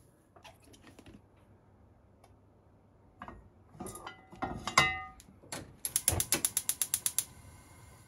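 Gas stove burner igniter clicking rapidly, about ten sharp clicks a second for just over a second, then the burner catching with a steady hiss. Before that, a glass oil bottle knocks and rings briefly against the frying pan as olive oil is poured.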